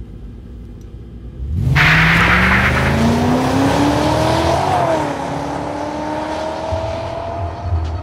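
A car pulls away hard with wheelspin. A burst of tyre noise comes about a second and a half in, and the engine revs up through the gears, dropping in pitch at a gear change midway, then climbing again.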